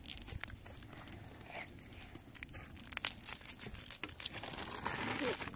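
Thin plastic snack packet crinkling and crackling as a small child handles it and eats from it, in irregular small clicks that grow busier near the end.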